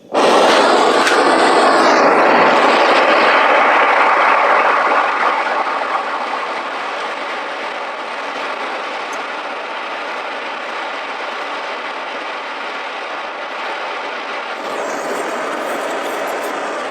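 Butane blowtorch burning with a steady hiss. It is loudest for the first five seconds, then settles a little lower. The torch is heating body steel to shrink out oil canning.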